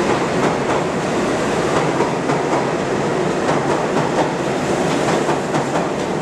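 New York City subway train running through the station alongside the platform: a steady loud rush of wheel and car noise with repeated clicks of wheels over the rails.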